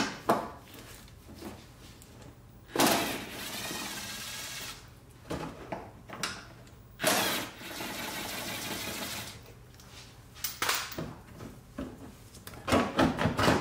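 Cordless drill with a socket spinning out two 10 mm bolts from the plastic wheel-well covering piece: two steady runs of about two seconds each, with clicks and knocks from handling the tool and bolts between them and a quick flurry of knocks near the end.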